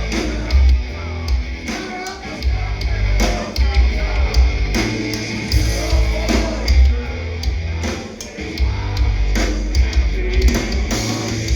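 Live rock band playing loudly with heavy bass, driving drum hits and distorted guitar, and a singing voice over the top.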